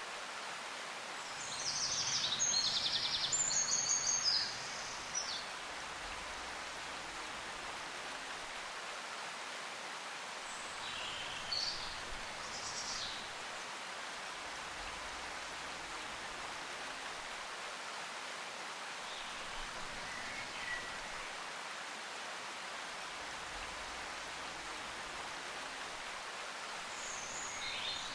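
Steady background hiss. About two seconds in, a few seconds of louder high-pitched scratchy chirping break through it, and fainter brief high sounds come later.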